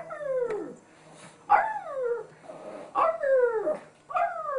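Chihuahua howling: four short, high-pitched howls, each sliding down in pitch, about one every second and a half.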